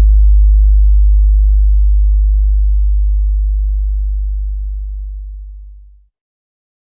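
One long, very deep electronic sub-bass tone from a bass-test sound-check track, held steady and slowly fading, then cutting off about six seconds in.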